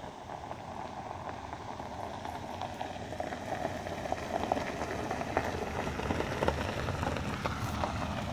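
A car driving on a gravel trail, its tyres crunching and crackling over the gravel, growing steadily louder as it approaches.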